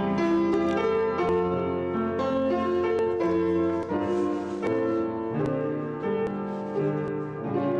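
Piano playing an instrumental piece, sustained chords and melody notes changing every second or so.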